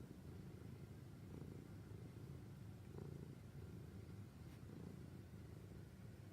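Sleeping domestic cat purring, a faint, steady low rumble.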